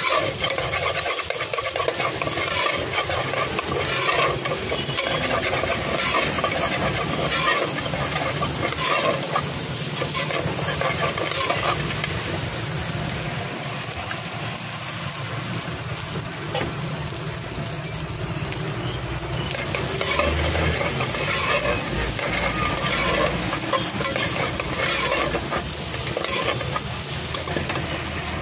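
A flat metal spatula scraping, clinking and turning egg rice around a large aluminium pot, in a rapid irregular run of scrapes, over a steady sizzle of the rice frying in masala.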